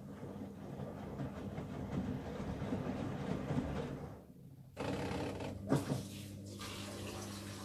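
Miele W1 washing machine mid-wash: the drum turns the laundry, stops for a moment about four seconds in, then after a click a steady hum sets in as water starts to run into the machine.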